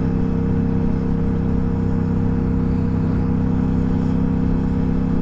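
Loud wind noise buffeting a RODE smartLav+ lapel mic inside a motorcycle helmet while riding, over a steady engine drone. The wind noise persists despite the helmet's closed vents and the mic's pop filters and wind muff.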